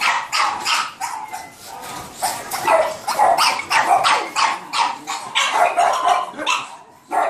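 Caged dogs barking over and over in short, sharp barks. After a brief lull the barks come several a second, then thin out near the end.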